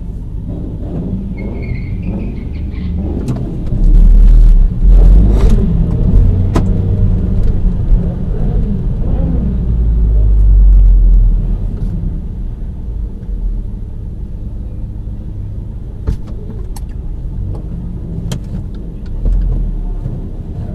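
Turbocharged Audi engine running at low revs while the car creeps forward, heard from inside the car. It has louder swells of low rumble about four to six seconds in and again around ten seconds.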